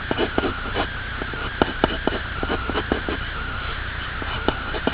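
H pencil sketching on paper: irregular short scratches and taps of the lead as strokes are drawn, over a steady background hiss.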